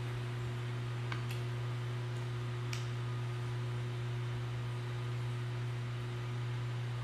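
A steady low hum, with a few faint clicks in the first three seconds.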